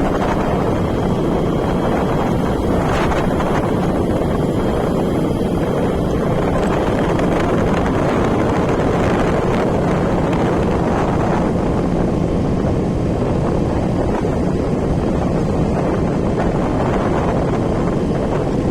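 Steady wind rushing over the microphone of a moving vehicle, with a faint, even hum underneath.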